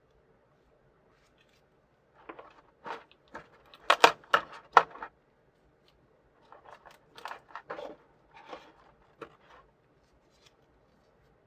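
Packaging of a figure being handled and opened: short, sharp crackles and clicks in two bursts, the louder first burst a few seconds in and a second softer run shortly after.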